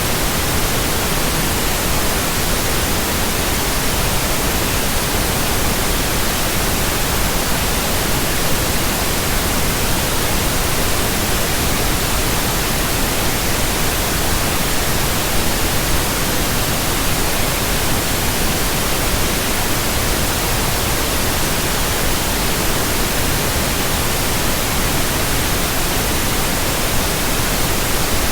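Steady pink noise: an even, unchanging hiss across the whole range, with no events or changes.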